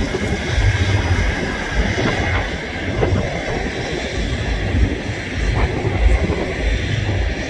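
Steady rushing roar of the Airbus A330's jet engines, with wind buffeting the microphone in irregular low gusts throughout.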